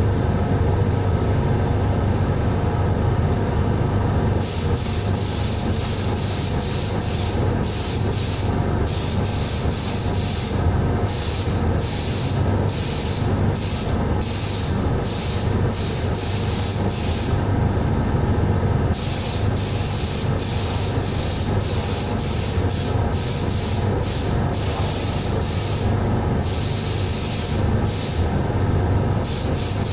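Sandblaster hissing in many short on-off bursts, starting about four seconds in and pausing briefly around eighteen seconds, over a steady low hum.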